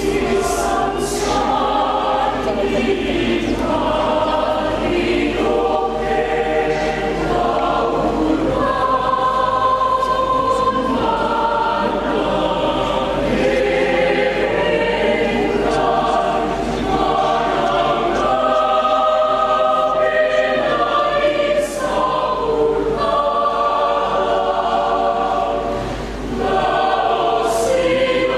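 Mixed church choir singing a hymn in several parts, the chords held and moving in step, with a short breath pause about 26 seconds in.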